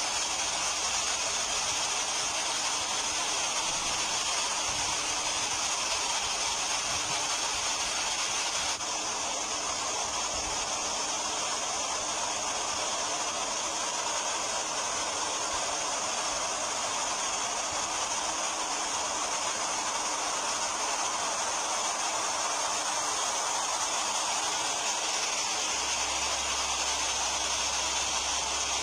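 River water rushing over a weir and through rapids: a steady, even rush of whitewater.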